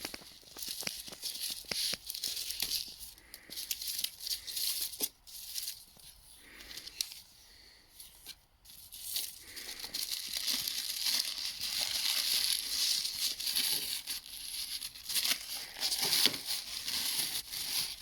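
Packaging being torn open and crumpled by hand, a crackling, rustling noise with many small crackles; it eases off for a few seconds in the middle, then picks up again and keeps going.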